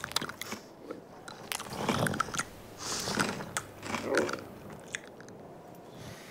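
Camel chewing: irregular chewing noises in three bouts about a second apart, dying away after about four and a half seconds.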